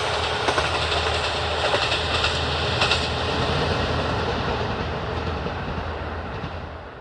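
JR Kyushu KiHa 183-1000 diesel railcar train running past, its wheels clicking over the rail joints under a steady rumble that grows fainter toward the end.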